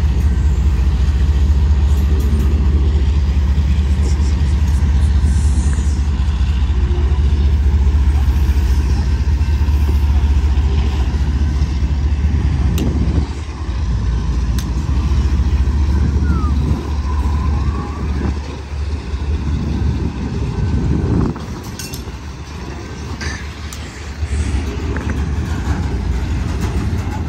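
Double-stack intermodal freight train rolling past: a steady low rumble of wheels on rail with a few sharp clanks. The rumble drops and wavers about halfway through.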